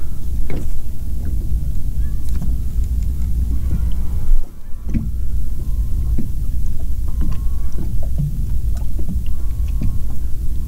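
Small waves lapping against a small fishing boat's hull over a steady low rumble of wind on the microphone, with scattered light knocks.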